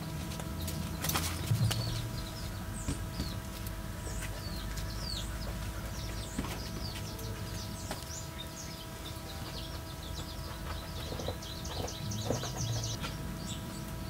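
Farmyard birds: small birds chirping in short high calls throughout, with chickens clucking now and then and a fast trilling run near the end. A few soft knocks of handling come in early on.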